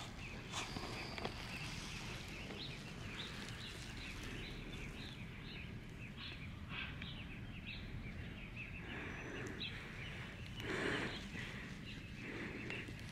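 Quiet outdoor ambience with birds chirping in the background over a low steady hum. A brief louder sound comes about eleven seconds in.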